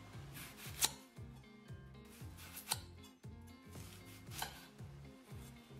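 A kitchen knife chopping through lettuce and red onion onto a marble counter: three sharp strikes, spread about two seconds apart. Background music with a steady beat runs underneath.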